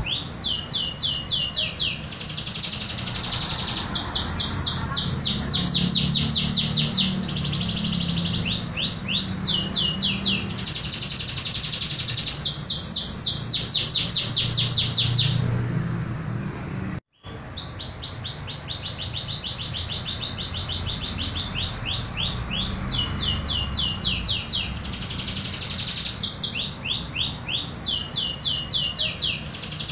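Domestic canary (local Indonesian canary) singing its natural song, not tutored with other birds' calls: a continuous run of rapid trills, each phrase a fast series of repeated notes sweeping down in pitch, the tempo changing from phrase to phrase. The song breaks off briefly about halfway through.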